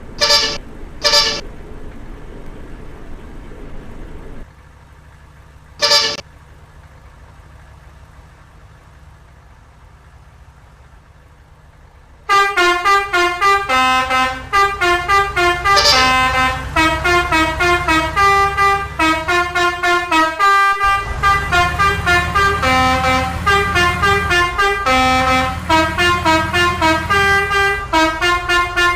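Klakson basuri, a multi-tone musical bus horn. It gives two short honks at the start and another about six seconds in, then from about twelve seconds in plays a continuous tune in quick stepping notes.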